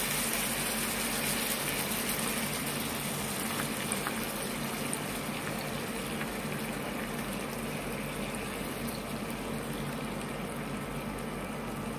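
Coconut milk poured in a steady stream into a hot frying pan of seared chicken breasts, sizzling as it hits the pan. The hiss slowly gets quieter.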